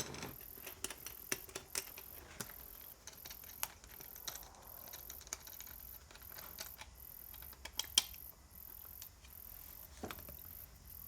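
Irregular light metallic clicks and taps of a spanner and bolts as the four bolts holding a small trolley wheel's split rim together are undone, with a sharper knock about eight seconds in. A faint high whine pulses about twice a second underneath.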